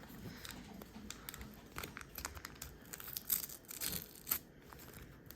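Foil trading-card pack being torn open by hand, the wrapper crackling and crinkling in irregular bursts, busiest in the middle.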